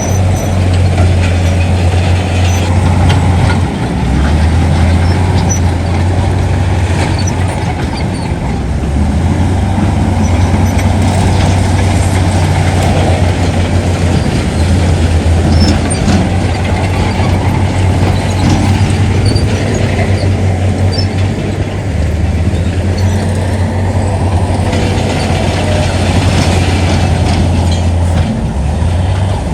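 Heavy diesel earthmoving machinery running: a loud, steady low engine drone whose note shifts now and then, with scattered clanks and rattles over it.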